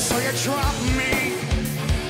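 Live rock band playing: a male lead vocal sung over electric guitars and drums, with a cymbal crash at the start.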